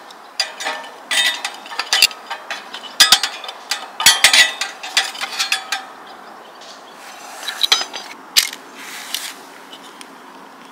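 Thin wood kindling and a fire-starter cube being handled in a small folding steel wood stove: a run of clicks, knocks and scrapes, busiest in the first half and sparser later.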